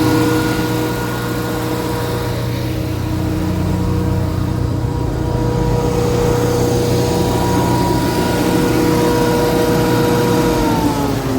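Generac SG230 generator's 14.2-litre natural gas engine running steadily: a low hum with a steady whine above it. Near the end the whine falls in pitch.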